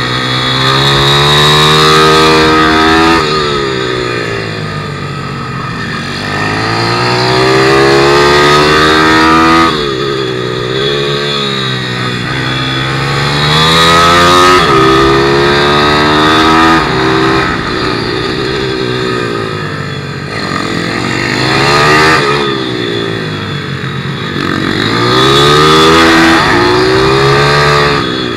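A 160cc single-cylinder four-stroke pit motard engine heard from onboard the bike at race pace. The revs rise under acceleration and drop sharply off the throttle for the corners, about five times over.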